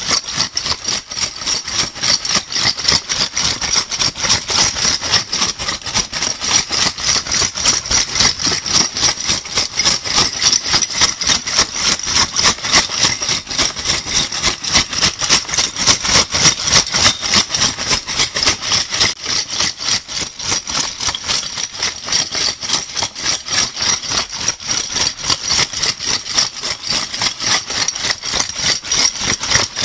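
Metal crown bottle caps shaken together in a steady, rapid rhythm, giving a continuous bright metallic rattle.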